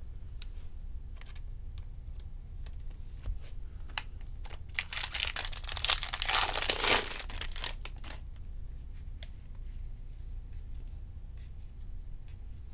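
Foil wrapper of a trading card pack being torn open and crinkled, loudest for a couple of seconds mid-way. Light clicks of cards being handled before and after.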